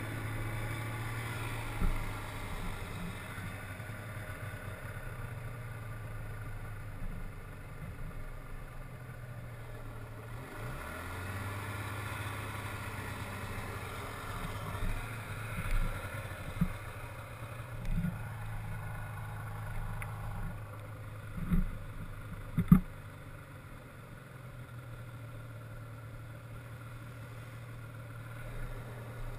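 Polaris Indy 340 snowmobile's two-stroke engine running at a steady, moderate speed while riding a trail. It drops briefly about a third of the way in, then rises back up. Several sharp knocks come in the second half, the loudest about three quarters through.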